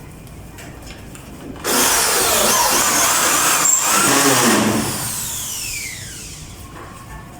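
A small power tool motor starts abruptly, runs loud for about three seconds with a wavering whine, then cuts off and whines down as it coasts to a stop.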